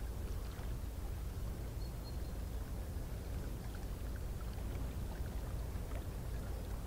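Steady low drone of an inland cargo ship's diesel engine passing on the river, with water washing and splashing over it.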